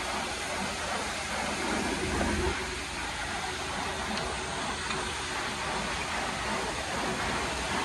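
Steady rushing noise of workshop machinery, even and unbroken, with no clear beat or tone.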